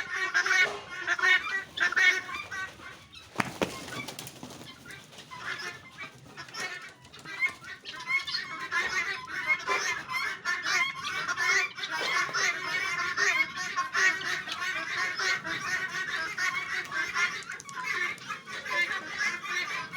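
A flock of birds calling, many short overlapping calls at once; the calling thins out about four seconds in and grows dense again about eight seconds in.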